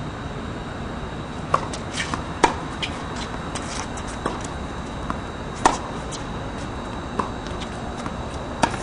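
Tennis ball being struck by rackets and bouncing on a hard court during a rally: sharp pocks at irregular intervals, about nine in all, over a steady background hiss.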